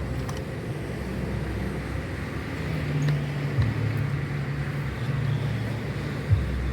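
Steady low hum of a running motor vehicle engine, its pitch shifting about a third of the way in, with a few faint metallic clicks and a sharper click near the end from a 26 mm wrench loosening the castle nut on a car's front wheel hub.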